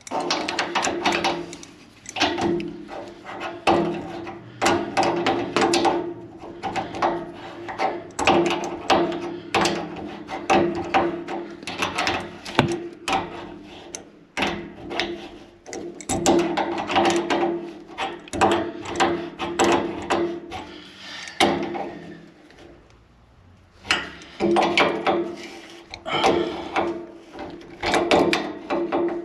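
Wrench tightening the nuts of a new chrome thermostatic radiator valve onto the radiator tail and pipe: a long run of short metallic clicks and creaks in bursts, with a quieter stretch about three-quarters of the way in.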